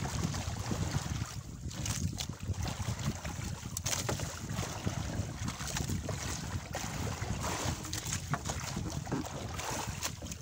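Wind buffeting the microphone on a small boat at sea: a steady low rumble with a few light knocks.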